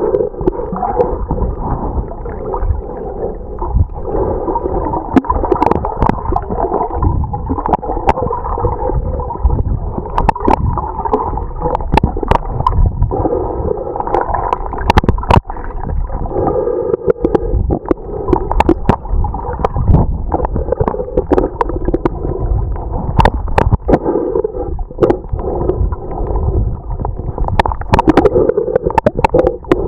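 Muffled underwater sound picked up by a camera submerged while snorkelling: a continuous low rumble and gurgle of moving water, with scattered sharp clicks throughout.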